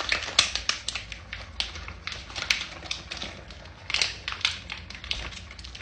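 A run of irregular light clicks and taps, several a second, from hands handling hard plastic parts while preparing the coffee machine.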